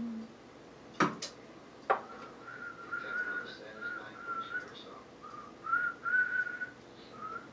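Two sharp clacks about a second apart, then a person whistling a tune in short notes that step up and down in pitch.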